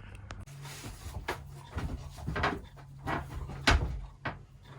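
A string of clunks and knocks of tools and bicycle parts being handled as a BMX is taken apart, the loudest a little under four seconds in, over a low hum that comes and goes.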